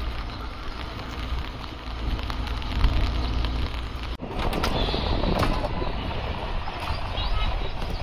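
Outdoor ambience dominated by wind rumbling on a phone microphone over a steady wash of noise, with a sudden brief break about four seconds in.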